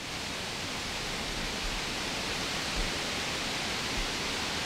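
Steady hiss of rain falling, with a few soft low thuds.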